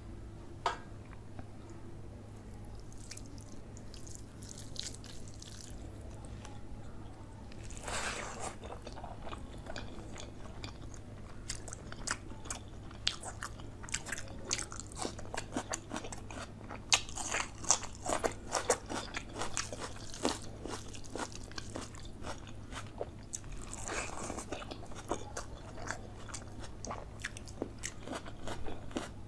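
Close-miked eating sounds: chewing and biting through chicken leg curry with rice and raw onion eaten by hand, with frequent crisp crunches and mouth clicks. It is sparse and faint for the first several seconds, busiest in the middle. A steady low hum runs underneath.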